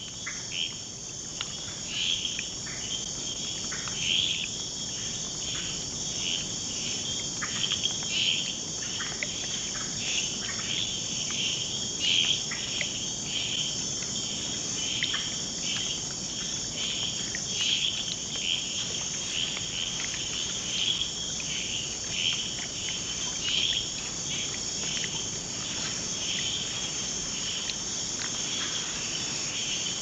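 Rainforest insect chorus, a steady high-pitched buzz, with short chirping calls scattered through it about once or twice a second.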